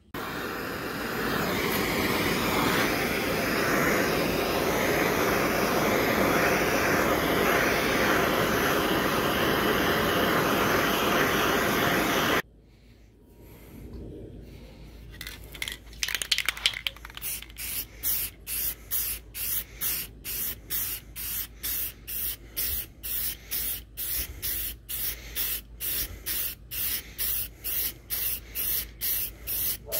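Aerosol can of satin clear coat spraying: a long steady hiss that cuts off suddenly about twelve seconds in, then, after a short lull, a run of short, even spray bursts at about two a second.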